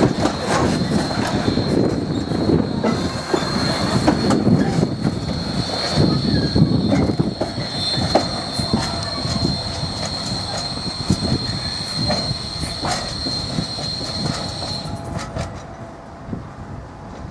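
Freight train of enclosed wagons rolling past, its wheels clattering over rail joints with a steady high wheel squeal that stops about fifteen seconds in. The sound fades as the last wagon draws away.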